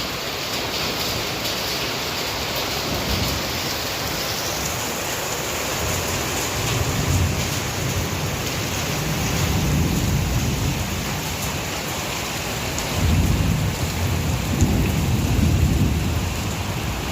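Heavy rain pouring steadily in a dense hiss, with low rumbles swelling twice in the second half.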